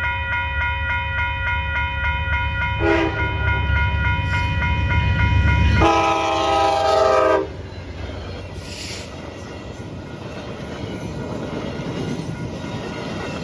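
Nathan K5LA five-chime air horn on a passing VIA Rail locomotive: a short blast about three seconds in, then a longer loud blast that cuts off about seven seconds in, over the heavy rumble of the locomotive. A pulsing ringing stops as the locomotive passes, and after the horn the train's cars roll by with a lower, steady rolling noise.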